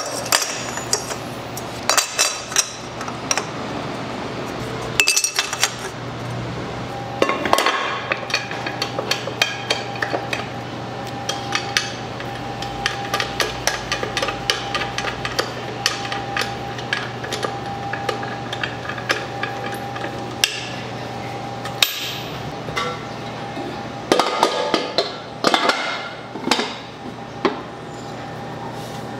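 Kitchen work sounds: frequent sharp knocks and clinks of utensils, pans and dishes in irregular clusters, over a steady low hum.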